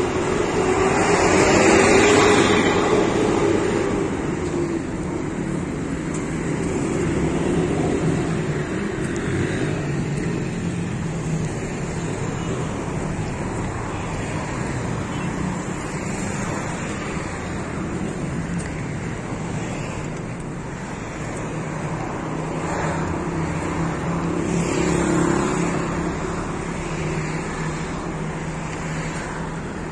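Street traffic noise: a continuous rush of cars on the road, with a low engine hum, a vehicle passing loudly about two seconds in and another swell of passing traffic later on.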